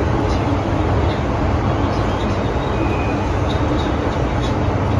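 Running noise inside a moving MTR M-Train (Metro-Cammell) metro car: a steady, loud rumble with a few faint ticks now and then.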